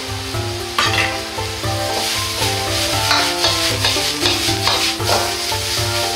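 Cabbage and carrot sizzling in a hot wok as a metal ladle stirs and tosses them, with several louder scraping strokes of the ladle against the pan. Background music with a steady beat plays underneath.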